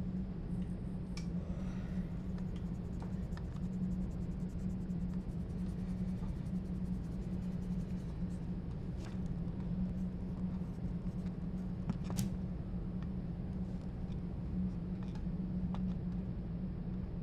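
Pencil scratching and ticking on paper, with a sharp tick about twelve seconds in, over a steady low hum.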